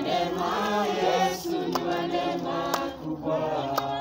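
A group of people singing together, several voices overlapping, with a few short sharp clicks.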